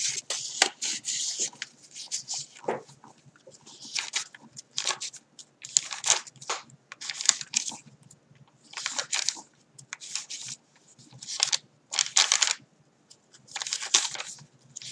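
Stiff coffee-dyed paper pages of a handmade journal crinkling and rustling as they are turned and handled, in a string of short bursts roughly one a second.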